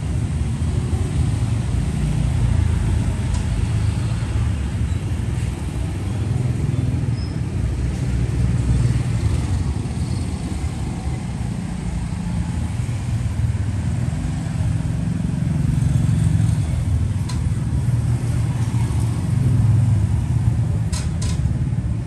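Steady low rumble of background noise, rising and falling slightly in strength.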